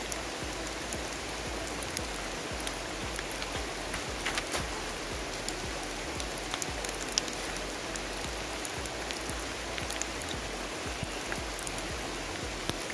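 Steady rain falling, a continuous hiss with many small drop hits.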